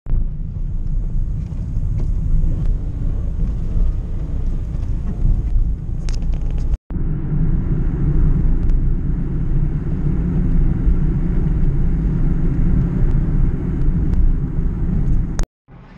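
Low, steady rumble of road and wind noise from a moving car. The sound drops out briefly twice, about seven seconds in and near the end.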